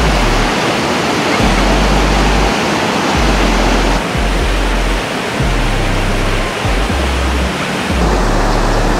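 Background music with a deep, repeating bass line, mixed with a loud, even rushing noise.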